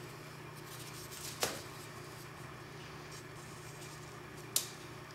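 A steady low hum with two short, sharp clicks about three seconds apart, the second one the louder.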